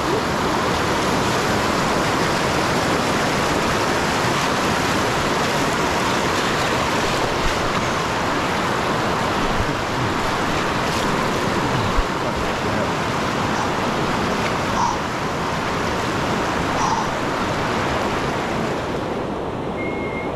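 Shallow river rapids rushing over rock ledges close to the microphone: a steady, loud wash of water that softens a little near the end.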